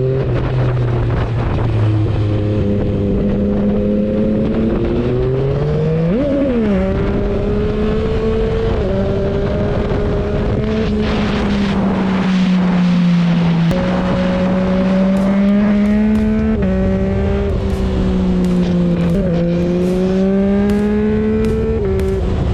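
Yamaha MT-09's three-cylinder engine and exhaust under hard acceleration, the pitch climbing through each gear and dropping sharply at every upshift, about half a dozen shifts in all.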